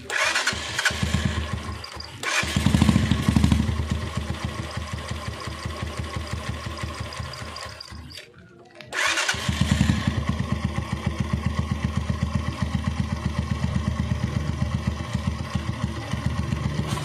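Single-cylinder 225 cc motorcycle engine started and run with a litre of diesel in its crankcase to flush out debris. It comes in at the start, picks up about two seconds in, goes quiet briefly about eight seconds in, then runs on at a steady idle.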